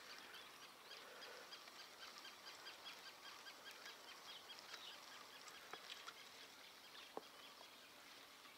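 Faint outdoor ambience with a quick, even run of high chirping ticks, about five a second, through the first half, and a couple of soft single clicks later on.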